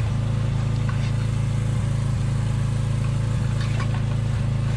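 A small engine idling steadily at an even pitch, with a few faint clicks over it.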